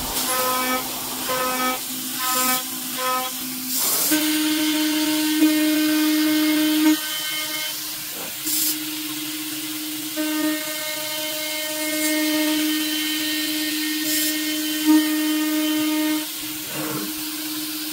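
Spindle of a home-built PrintNC Pro CNC router milling 6061 aluminium plate on finish passes along the pocket walls. The cutter makes a pitched cutting tone with overtones, chopped into short rapid pulses for the first few seconds, then mostly steady with a few brief breaks. A few short noisy bursts stand out over it.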